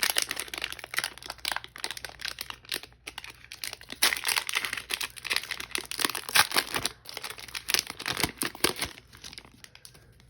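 Foil wrapper of a Pokémon booster pack crinkling and tearing as it is torn open and handled by hand, in quick irregular crackles that die down near the end.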